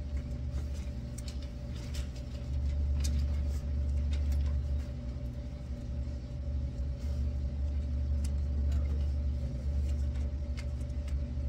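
Steady low room rumble with a faint constant hum, typical of a classroom's ventilation, with a few faint scattered clicks and paper rustles.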